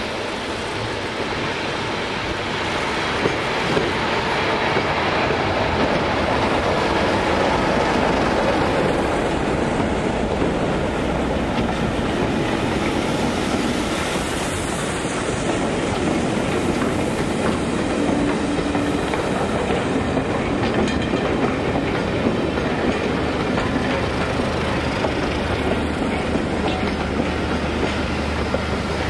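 A train made up of a Class 33 diesel locomotive and a Bulleid Pacific steam locomotive running past, its wheels clattering over the rails, with a steady low engine hum that grows stronger near the end.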